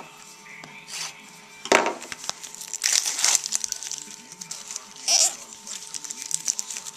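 Plastic wrapper of a trading-card pack crinkling in several short bursts as it is slit open with a pocket knife and handled.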